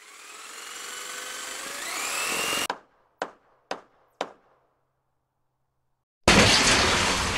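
Power tool sounds: a motor whining and rising in pitch for nearly three seconds, then three sharp knocks about half a second apart. After a short silence, a loud burst of rushing noise starts near the end.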